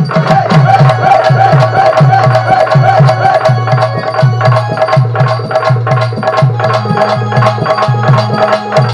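Instrumental folk-drama music: hand drums (barrel drum and tabla-style pair) beating a fast, even rhythm under a wavering melody line.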